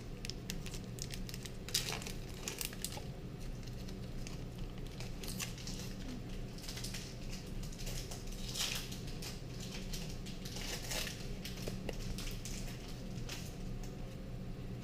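Foil Pokémon booster pack wrappers being crinkled and torn open, irregular crackly rustling throughout, over a faint steady low hum.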